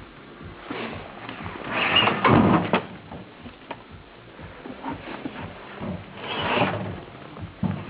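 Handling noise from an old microwave oven: two stretches of scraping and rustling, the louder about two seconds in and another about six seconds in, with a few sharp clicks and knocks between.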